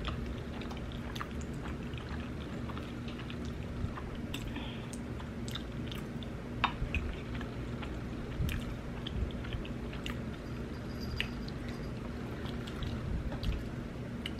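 A person chewing a mouthful of food close to the microphone, with wet mouth clicks and smacks scattered throughout.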